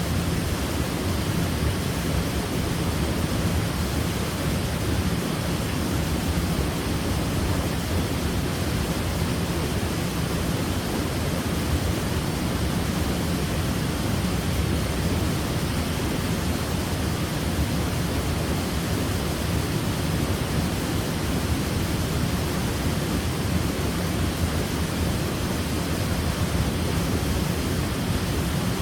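Waterfall: falling water making a steady, unbroken rushing noise, strongest in the low pitches.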